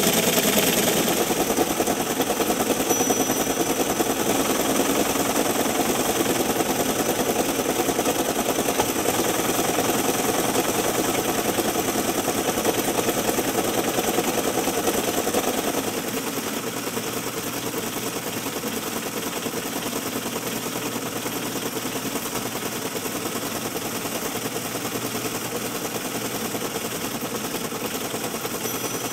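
Teletype ASR-33 paper tape punch running continuously as it punches a tape fed at 110 baud, a fast steady mechanical rattle with the machine's motor running under it. It becomes somewhat quieter a little past halfway.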